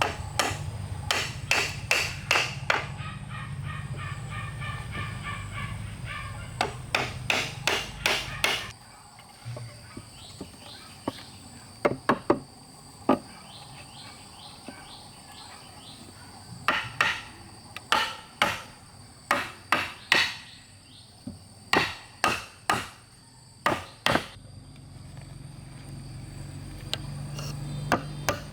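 Hammer blows on wood, coming in runs of several strikes about two a second with short pauses between runs.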